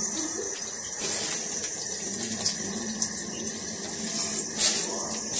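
A steady watery hiss with a low hum underneath, a few faint ticks and a brief louder surge near the end.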